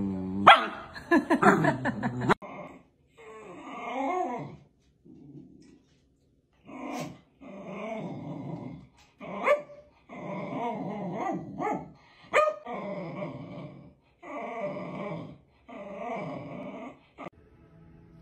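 A dog vocalizing: a loud outburst in the first two seconds, then a run of drawn-out, wavering grumbles about a second each, separated by short pauses.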